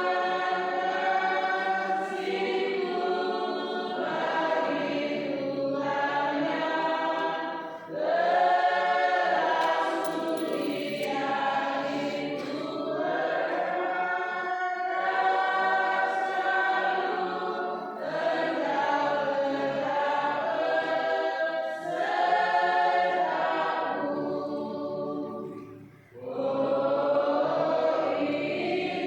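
Church choir singing, in long sustained phrases with brief breaks between them and a short pause near the end.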